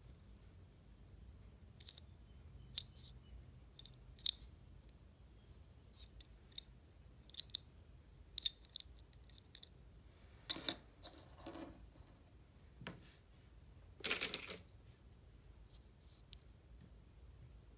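Hands handling chocolate packaging: faint, scattered small clicks and taps, with two short crinkling rustles of wrapper, one about ten seconds in and a louder one near fourteen seconds.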